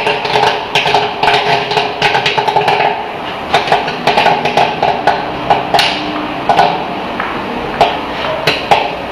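Corn popping in the stainless kettle of a commercial popcorn machine: a rapid crackle of sharp pops that thins to scattered single pops in the second half, as the batch nears its end.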